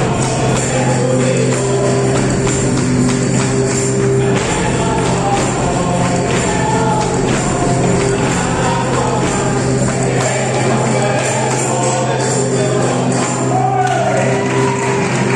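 Live Spanish folk music played by a band of folk musicians, with singing over held instrument notes and a run of sharp percussion strokes.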